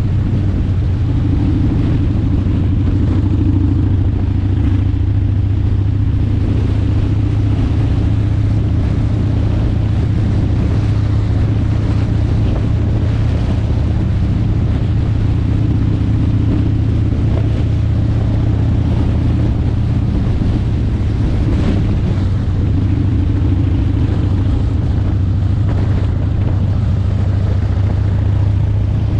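A road vehicle driving at steady speed: a constant low engine drone under tyre and wind noise on the microphone.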